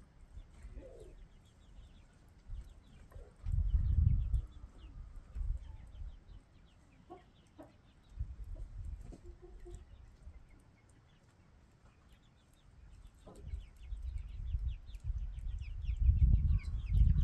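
Chickens clucking now and then, with several loud stretches of low rumble on the microphone.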